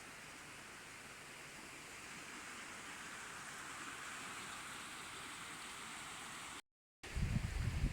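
Steady rush of flowing river water, growing a little louder a couple of seconds in. Near the end it breaks off in a brief gap, then wind buffets the microphone with loud low rumbles.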